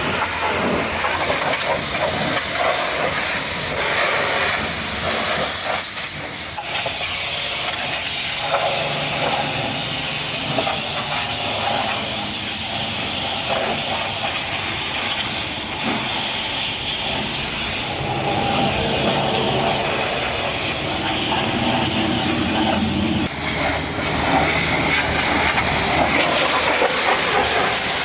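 Pressure washer spray hissing steadily against a muddy truck, its tone shifting as the jet moves over different surfaces.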